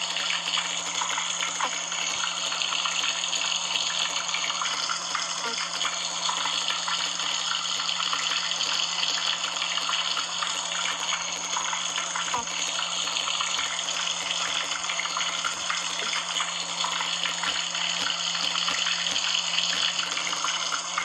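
Steady rain, a dense even hiss of countless small drops with a low steady hum underneath.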